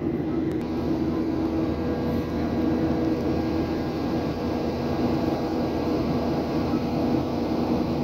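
Jet airliner cabin noise in flight: a steady rush of engine and airflow noise with a low, steady hum underneath.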